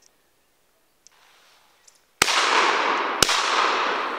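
Two shotgun shots about a second apart, fired at a flying woodcock. They are followed by a long echo that dies away slowly over several seconds.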